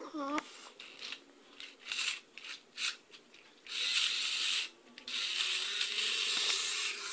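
Small battery motor of a toy bullet train whirring in stop-start bursts, its gears and wheels grinding as it strains to pull the block wagons along plastic track. A brief squeak right at the start.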